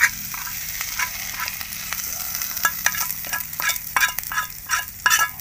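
Cooking oil sizzling in a pan while a metal utensil stirs, scraping and clinking against the pan with many short sharp taps.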